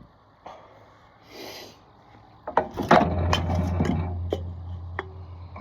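Coca-Cola can being punched open with a key to shotgun it: a click, then a short hiss of escaping carbonation. After that come a few seconds of loud crackling and clicking from the can.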